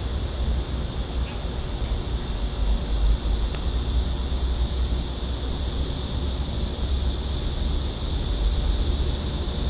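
Steady high-pitched drone of insects, with a faint pulsing, over a low rumble of wind buffeting the microphone. A couple of faint clicks sound about a second in and about three and a half seconds in.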